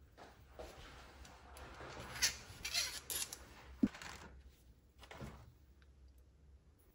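Hands rummaging in a plastic organiser box and picking out small nylon washers: a few seconds of rustling and light clattering, with a sharp click just before four seconds in and a lighter tap about a second later.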